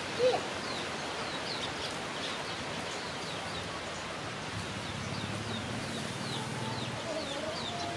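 Rural yard ambience: small birds chirping over and over in short, high, falling notes. A brief louder call comes just after the start, and a wavering call near the end.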